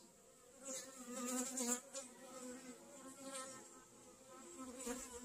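Honey bees buzzing over an opened brood frame from a nuc colony, a low hum that swells between about one and two seconds in and again near the end as bees pass close.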